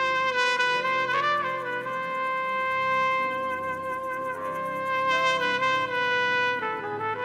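Solo trumpet holding one long note for about six seconds over a faint backing, then stepping down through a few lower notes near the end.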